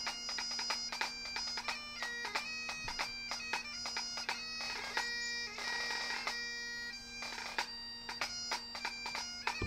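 Bagpipe music: a steady drone held underneath a chanter melody that moves between notes with many quick grace notes.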